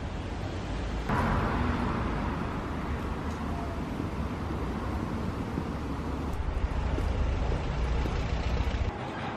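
Street traffic noise: a steady low rumble and hiss of passing cars, which comes in abruptly about a second in and falls away near the end.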